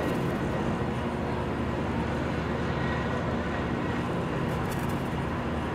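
Steady low rumble with a hiss over it and no distinct events: ambient machinery and wind noise aboard an aircraft carrier underway.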